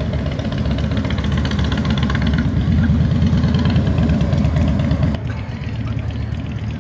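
Road traffic passing close: car and motorcycle engines go by, loudest in the middle. About five seconds in the sound drops suddenly to a quieter steady background.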